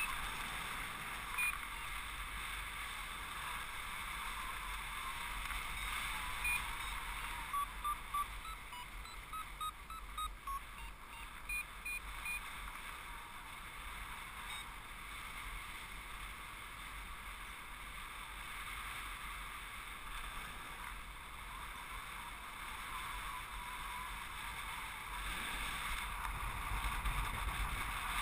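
Steady wind noise over the microphone of a paraglider in flight, a continuous hiss with a low rumble. A flight variometer gives short high beeps, single or in quick runs, most of them in the first half.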